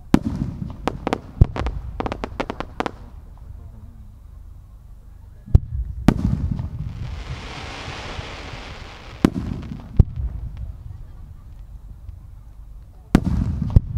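Aerial firework shells bursting: a bang and then a quick run of sharp cracks over the first three seconds, further single booms with rumbling tails around the middle, a few seconds of hissing, and two more bangs near the end.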